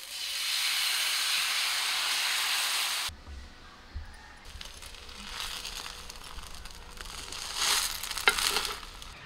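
Rice-flour batter sizzling loudly as it hits a hot cast-iron pan, for about three seconds before it cuts off suddenly. Quieter sizzling and crackling follow, with a louder burst and a sharp click near the end.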